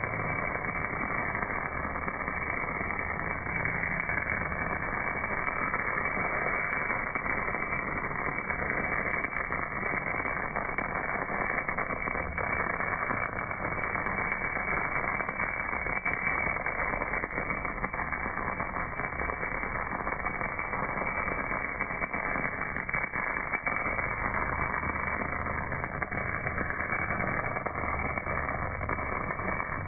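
MAG welding arc burning on a cast workpiece, heard slowed down: a steady, muffled crackling hiss with no high end.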